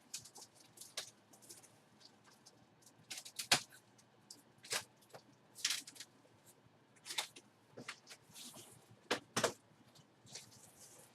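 Plastic packaging crinkling and being handled: a dozen or so short, irregular rustles and clicks.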